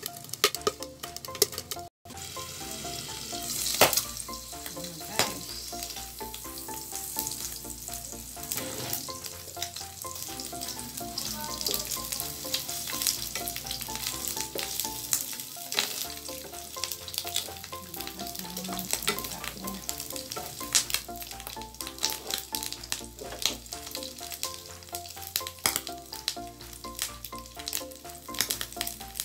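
Pork cubes sizzling and crackling in their own rendering fat in a nonstick frying pan, with a wooden spatula scraping and stirring them. The water has boiled off and the pork fat is coming out. Background music runs underneath.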